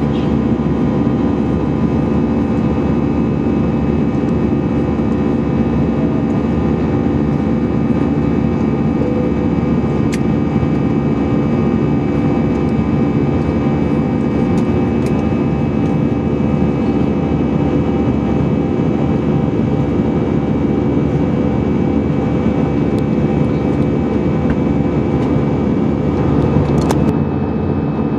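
Cabin noise of an Airbus A319-111 in the climb, heard from a seat over the wing: its CFM56-5B5 turbofan engines give a loud, steady rumble with constant humming tones. A few faint clicks, and a brief louder blip about a second before the end.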